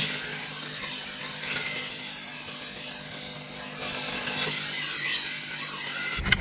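High-speed-steel bunka kitchen knife blade being sharpened, steel scraping steadily against an abrasive to restore a dull section of the edge. A short knock near the end.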